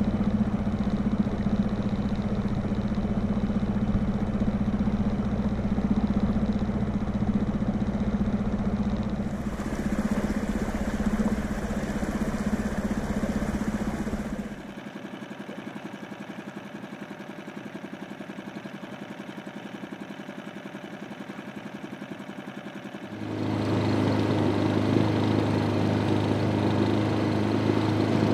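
Small outboard motor on an inflatable dinghy running steadily while under way. About halfway through, the sound drops to a quieter, thinner engine noise. About three-quarters through, it returns louder with a lower, steady engine note.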